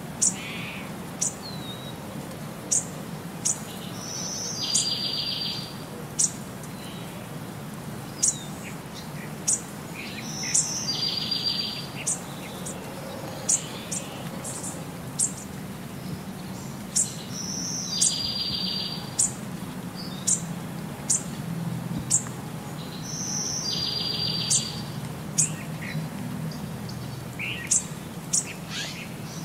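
Birdsong repeating in a loop: sharp high chirps every second or so, and a fast trill of rapidly repeated notes about every six and a half seconds, over a low steady hum.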